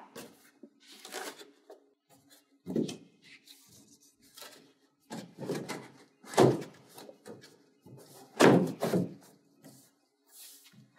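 Large corrugated cardboard panel being handled and fitted onto a cardboard play castle, its tabs pushed into slots: a series of separate knocks and thumps with scraping between, the loudest about three-quarters of the way through.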